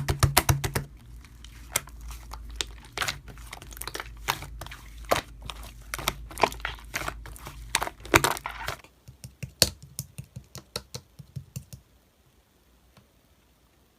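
Slime being pressed and poked with fingers: a dense run of crackles and sharp pops over a low hum, thinning to scattered clicks after about nine seconds and dying away near twelve seconds.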